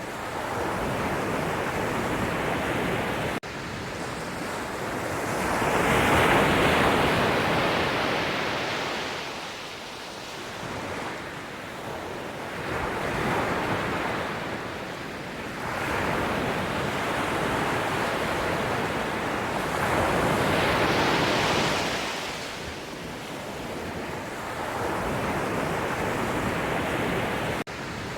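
Sea waves breaking and washing ashore, the surf swelling and falling away every few seconds, loudest about six seconds in and again near twenty seconds in.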